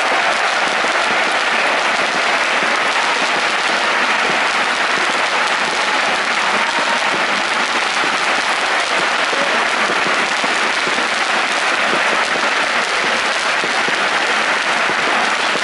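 Large football stadium crowd in a steady, loud wash of cheering and clapping.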